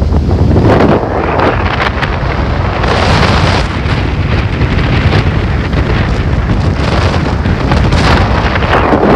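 Strong wind buffeting the microphone in gusts, over the rush of a rough sea breaking in high waves.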